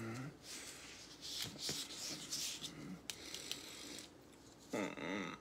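Hands rubbing and scraping at a string bracelet and the skin of the wrist, a hissy rubbing noise with a few small clicks. Near the end, a short vocal sound with a wavering pitch.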